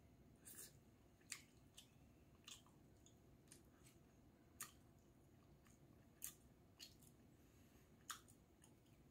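Faint eating sounds from a man eating braised cutlassfish stew with chopsticks: about ten soft, short clicks and smacks, unevenly spaced, over a quiet room hum.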